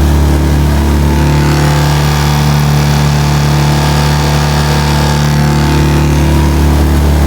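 Small Suzuki outboard motor running steadily under throttle, a constant low drone. A hiss rises over it for a few seconds in the middle.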